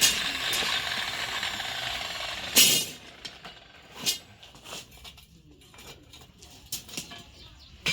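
Electric arc welding crackling, stopping about two and a half seconds in with a sharp knock, followed by a few light metal taps and clicks.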